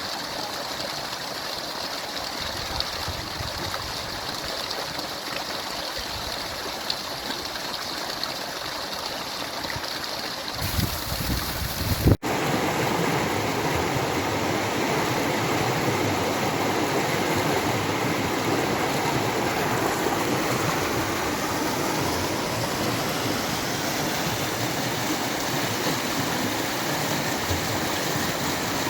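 A stream of running water, rushing steadily. A brief low rumble sounds just before an abrupt cut about twelve seconds in, after which the flowing water is louder and fuller.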